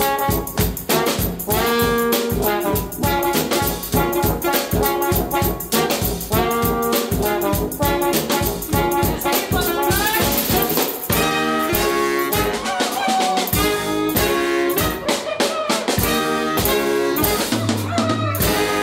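Brass band playing a New Orleans funk tune: horns playing the melody over a steady drum beat.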